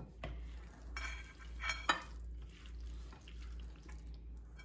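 Silicone spatula mixing a mayonnaise-dressed pasta and vegetable salad in a glass bowl: irregular, soft, wet stirring strokes, with a few sharper scrapes in the first two seconds.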